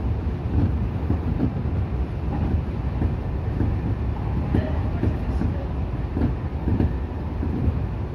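Electric commuter train running along the track, heard inside the driver's cab: a steady low rumble with frequent, irregular clicks from the wheels on the rails.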